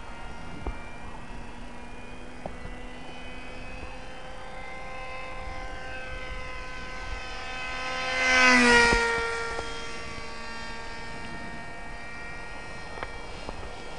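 Small electric RC pusher plane in flight, its brushless motor and propeller making a steady whine. The whine swells as the plane passes close about eight and a half seconds in, and its pitch drops as it goes by.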